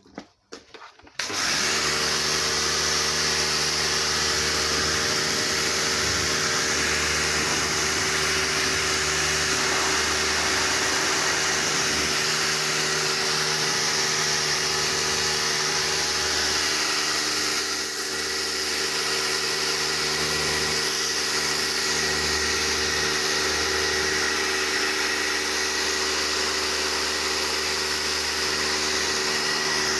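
Pressure washer starting about a second in, then running steadily: a steady motor and pump hum under a broad hiss.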